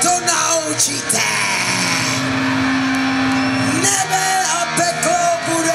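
Loud live rock-band sound through a PA on a concert stage: a voice over the band, with a note held for about two seconds near the middle.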